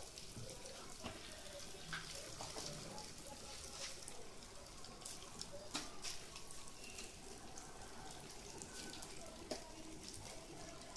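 Breadcrumb- and vermicelli-coated vegetable cutlets deep-frying in hot oil: a faint steady sizzle with scattered crackles and a few sharper pops, as more cutlets are slid into the oil.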